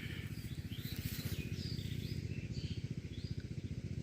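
Birds chirping, a string of short calls, over the steady low throb of an engine running.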